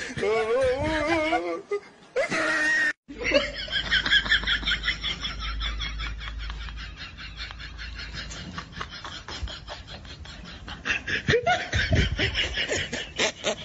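People laughing: a long run of quick, repeated high-pitched laughter, broken by a short silence about three seconds in.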